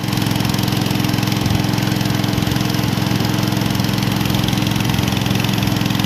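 Small boat engine on a wooden longboat running steadily at cruising speed under way, towing a second boat.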